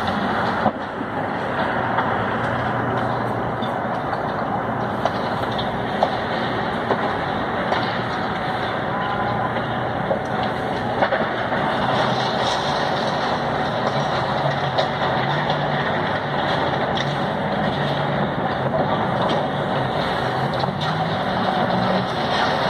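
A fire truck's diesel engine runs steadily at a low hum under a dense, even rushing noise, with a few scattered knocks.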